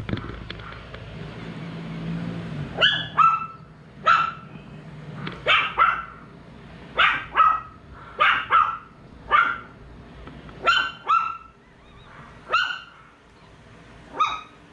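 A dog barking over and over, the barks mostly coming in pairs, starting about three seconds in.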